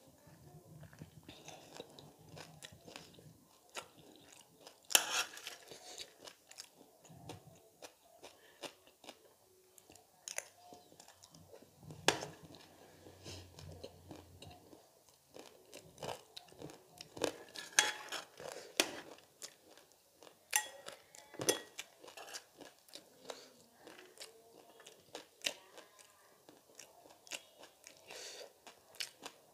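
Close-miked chewing of a mouthful of crunchy chatpate, a mix of dry instant noodles, peas and onion, with irregular sharp crunches throughout; the loudest come about five, twelve and eighteen seconds in.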